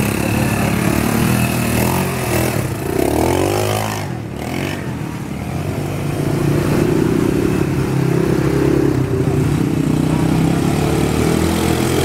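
Several ATV (quad bike) engines running as the bikes pass one after another on a dirt trail, with a rev rising and falling about three seconds in, a short drop in level around four to five seconds, then steady running again.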